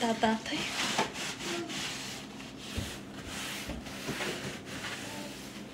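Irregular rustling and rubbing noise, like a handheld phone being handled against its microphone.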